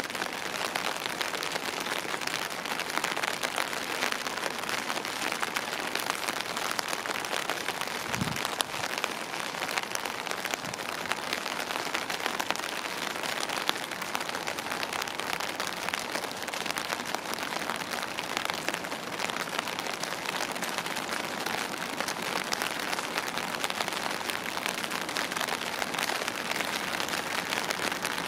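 Steady rain falling, with many single drops striking hard surfaces close by. There is one low thump about eight seconds in.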